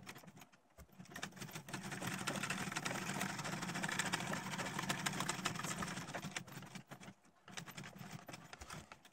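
Sewing machine stitching a seam through leather: a rapid run of needle strokes that gets going about a second in, runs for about five seconds and stops, followed by a few lighter clicks.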